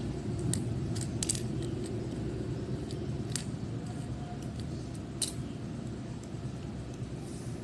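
Small plastic SC fiber-optic adapters clicking against each other and the tile floor as a hand shuffles them, a few scattered clicks over a steady low background hum.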